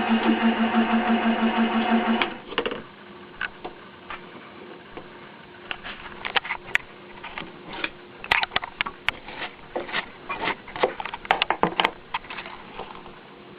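Milling machine running as it cuts a Delrin gear blank, a steady pulsing hum, then switched off about two seconds in. Afterwards a faint steady hum stays, with scattered sharp clicks and knocks of metal handling.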